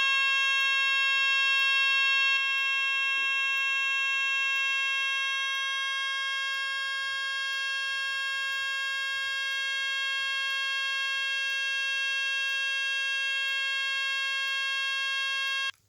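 AE&T T105N fire alarm sounder playing its tone 26: one continuous steady tone with no warble or sweep, which cuts off suddenly near the end.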